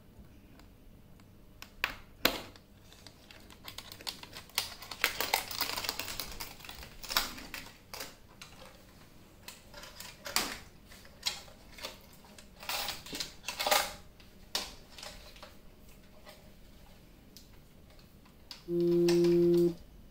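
Metal snap hook of a shoulder strap clicking onto the ring of a plastic megaphone, with the nylon strap rustling and the body knocked about as it is handled. Near the end a steady electronic tone from the megaphone sounds for about a second.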